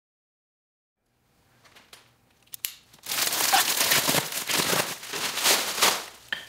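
Plastic stretch wrap around a pallet of wood blocks being slit with a knife and pulled off: a few small clicks, then loud crinkling and tearing plastic from about three seconds in.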